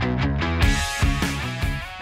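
Background rock music with guitar, starting to fade out in the second half.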